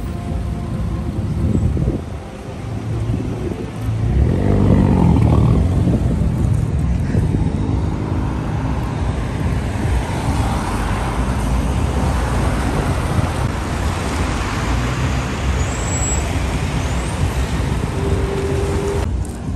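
Road traffic: about four seconds in, a heavy vehicle's engine starts up loudly with a pitched note for a few seconds, then a vehicle swells past with a steady rush of tyre noise over a continuous low rumble.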